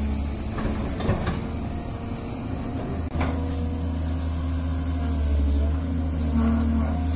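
Diesel hydraulic excavator running steadily at working revs, with a faint hydraulic whine and two sharp metallic knocks, about one second and three seconds in.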